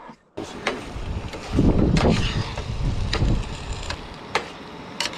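Wind buffeting the microphone, heaviest in the middle, with a few sharp clinks of a spoon stirring in a stainless steel pot.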